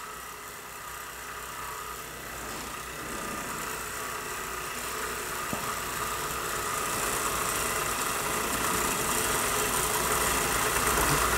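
A Microcosm aeolipile (Hero's engine) model running under steam: the brass sphere spins on its pivot as steam jets out of its nozzles, making a steady hissing whir that grows gradually louder.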